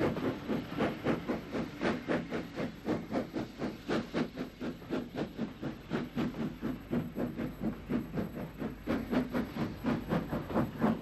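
Steam tank locomotive, a Great Southern-built 0-6-2, working a passenger train, its exhaust beating in an even rhythm of about three chuffs a second over a hiss of steam.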